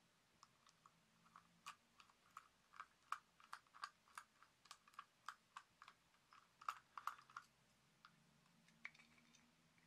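Small screwdriver driving the screws back into the cover of a Wylex 15 A unfused piggyback plug: faint, irregular clicks, a couple to three a second, as the blade works in the screw heads and knocks the plug body.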